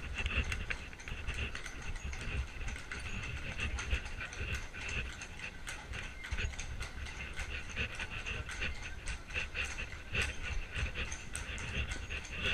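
Horse's hooves clip-clopping on cobblestones as a horse-drawn carriage rolls along, with the rumble and rattle of its wheels over the cobbles.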